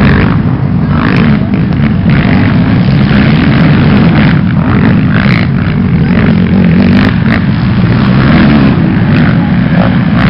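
Loud racing ATV (quad) engines running hard under throttle, with no let-up.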